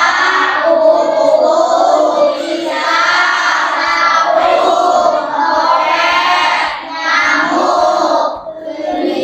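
A song sung by children's voices, in held, flowing phrases with a short pause between phrases near the end.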